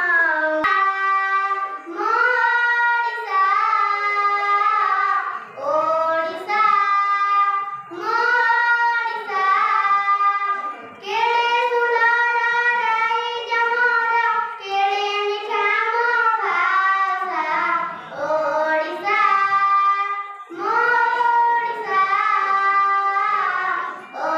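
A boy singing solo into a microphone, unaccompanied. He sings a melody in held notes, phrase after phrase, with short breaths between.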